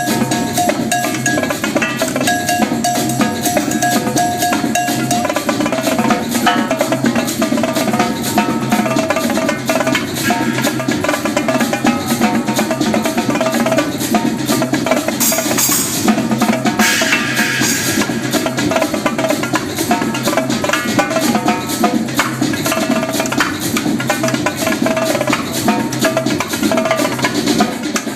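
Live percussion on a Mapex drum kit with Paiste cymbals, rapid stick strokes on snare and drums played over an electronic dance track. Two cymbal crashes ring out about halfway through.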